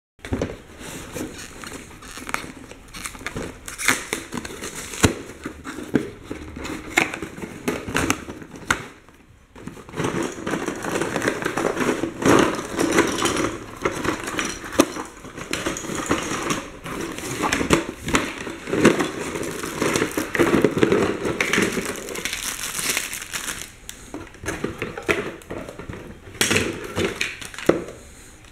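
Unboxing a toy track set: a cardboard box being opened and plastic packaging and plastic track pieces being handled, with rustling and crinkling and many small clicks and knocks.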